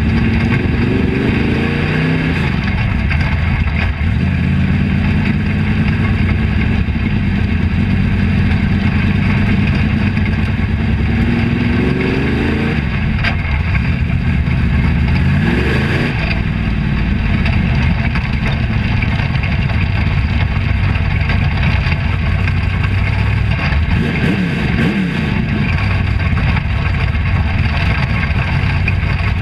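Dirt-track race car engine heard from inside its own cockpit, running loud at speed through a hot lap. The revs climb several times as it accelerates, with steadier running in between.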